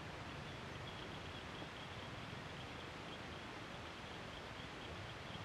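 Quiet outdoor ambience by the water: a steady low hiss with a faint, high chirping repeated evenly from about a second in, like a calling insect or bird.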